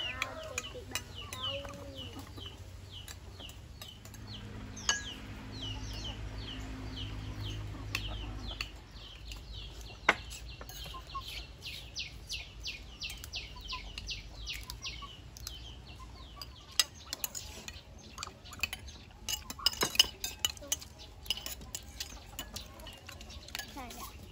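Chicks peeping in a rapid run of short, falling high chirps, about three or four a second, until about two-thirds of the way through. Spoons clink against dishes, most often near the end, and a low hum runs for a few seconds in the first half.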